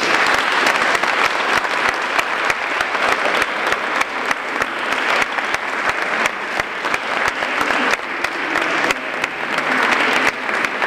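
Audience applauding at the end of a lecture, a dense steady clapping that starts suddenly and keeps going.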